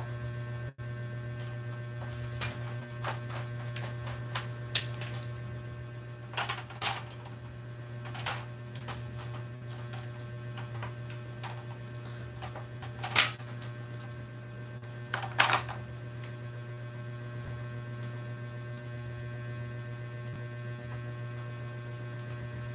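Scattered plastic clicks and knocks from ring light parts being handled and fitted together, with sharper ones about 13 and 15 seconds in, over a steady low hum.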